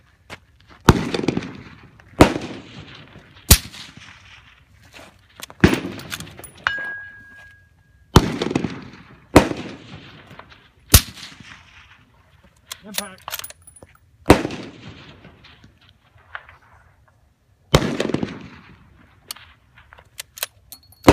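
Suppressed 6.5 Creedmoor bolt-action rifle firing a string of shots, about ten, most one to two seconds apart with a longer gap near the end. Each shot is a sharp crack followed by an echo rolling back off the hills.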